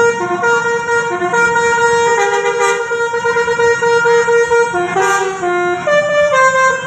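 Basuri musical horn on a tour bus playing a tune: loud held horn notes stepping up and down in pitch one after another.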